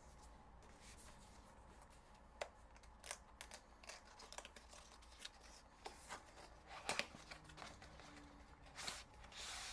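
A small cardboard box being opened by hand: faint scattered clicks, taps and paper-like rustles, with a louder scraping rustle near the end.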